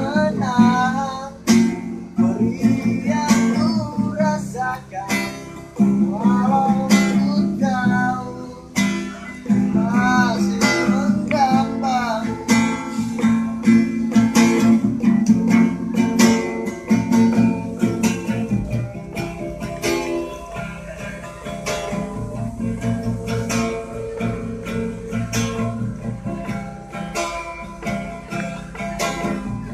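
Nylon-string classical guitar strummed in a steady rhythm, chords ringing continuously.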